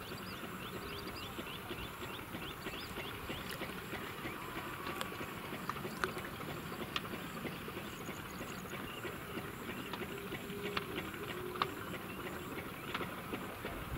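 Steady open-air background noise with a bird calling in a quick run of short chirps at the start, a brief high twitter later on, and scattered faint clicks.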